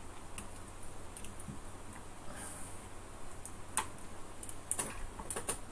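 A few faint, scattered clicks and taps of small parts and tools being handled while an old calculator is taken apart.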